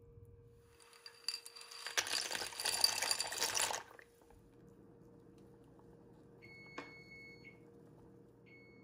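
Dry penne poured into a pot of boiling water: a rush of rattling and splashing hiss lasting about three seconds. Later comes an electronic beep of about a second with a click in its middle, and a shorter beep near the end.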